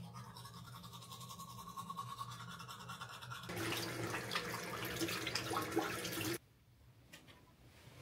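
A small electric motor buzzing steadily. About three and a half seconds in it turns louder and rougher, with crackling, then stops abruptly as if switched off.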